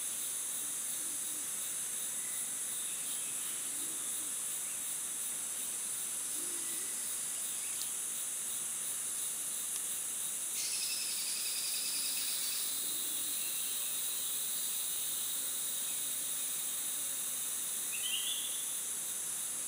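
Steady, high-pitched insect chorus of a tropical rainforest. A clearer call rises above it for about two seconds near the middle, and a brief rising call comes near the end.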